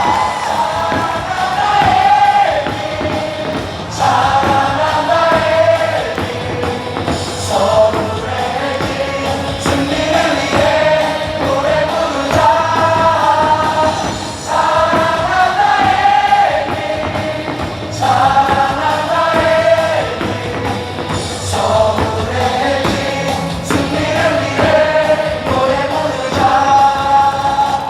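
A large stadium crowd singing a cheer song together in unison over loud amplified backing music, in short repeated melodic phrases.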